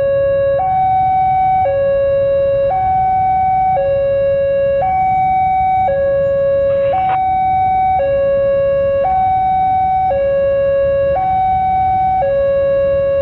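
Railway level-crossing warning alarm sounding its electronic two-tone signal: a lower and a higher tone alternate about once a second without a break. It signals that the crossing is closed for an approaching train.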